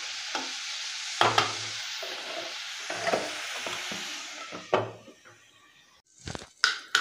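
Shredded cabbage sizzling in oil in a metal kadai, with a few knocks of a steel ladle against the pan. The sizzle fades after about five seconds, and two sharp clinks near the end come as a glass lid is set on the pan.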